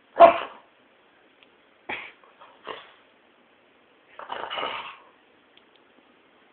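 Tibetan terrier giving short barks and yips: a loud one right at the start, two quick ones around two seconds in, and a longer, busier run of noises about four seconds in.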